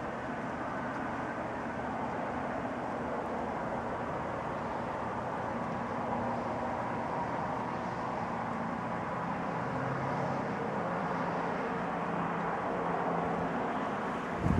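Steady rumbling background noise with a faint low hum, like an engine running nearby. A single brief, sharp, louder sound comes right at the end.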